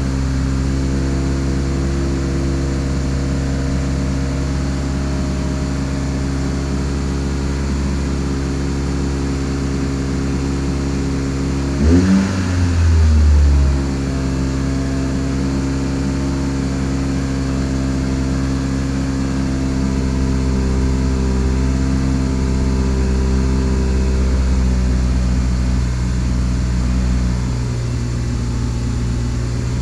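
Toyota Celica's four-cylinder engine idling through a new aftermarket exhaust just after a cold start, with a brief throttle blip about twelve seconds in.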